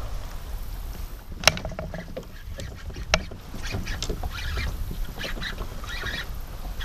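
Two sharp clicks, then irregular splashing and rustling as a bass hooked on a topwater frog fights in lily pads.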